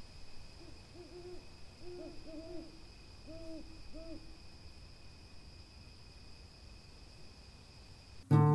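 An owl hooting at night: a run of about six short hoots over some four seconds. Acoustic guitar music comes in at the very end.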